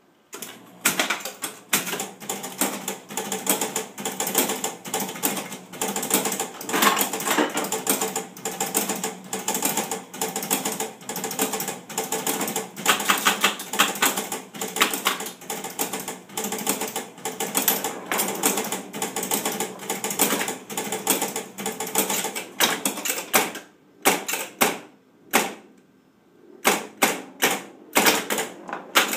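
Electromechanical pinball machine's relays and stepper units clicking rapidly and continuously, a dense mechanical clatter. It thins to scattered bursts of clicks about six seconds before the end. The clatter comes as contacts are touched by hand to force the machine, stuck on 'game over', to start a game.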